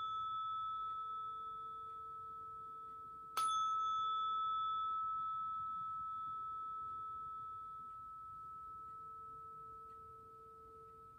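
A tuning fork rings a clear, high, steady tone that slowly fades, with a lower tone humming beneath it. It is struck again about three and a half seconds in, giving a bright attack with brief overtones before the ring settles and decays. This is a chakra sound-healing fork, used here for the solar plexus.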